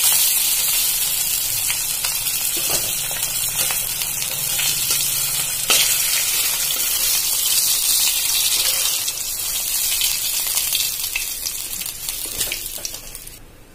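Pomfret frying in hot mustard oil in an aluminium kadai: a steady sizzle, with a couple of sharp clicks of the metal spatula against the pan as the fish are lifted out. The sizzle dies down near the end as the pan is left with only oil.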